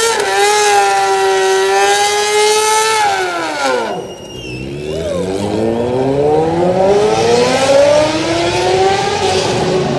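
A car engine revving at high rpm: held steady for about three seconds, dropping off around four seconds in, then winding slowly back up.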